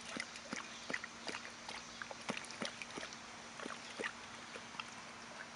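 Akita lapping water from a stainless steel bowl: a run of short wet laps, about two or three a second, thinning out near the end.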